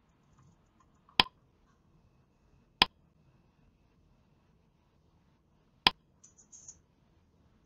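Three sharp single clicks of a computer control, advancing a slideshow: the first about a second in, the second a second and a half later, the third near the end, followed by a brief faint rustle.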